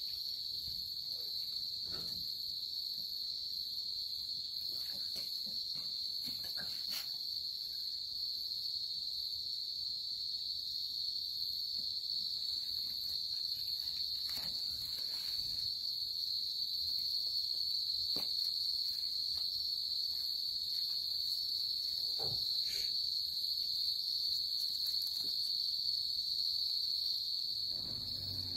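Crickets chirring in a steady, unbroken high-pitched chorus, with a few faint soft taps now and then.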